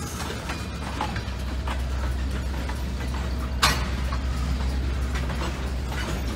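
Tank cars of a slow freight train rolling past with a steady low rumble, light clicks and squeaks from the wheels and running gear. One sharp bang comes about three and a half seconds in.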